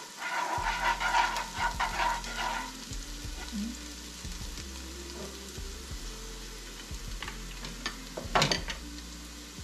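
Food frying in hot oil in a pan: dense scraping and stirring strokes for the first two to three seconds, then a quieter steady sizzle, with one sharp clank of utensil on pan near the end.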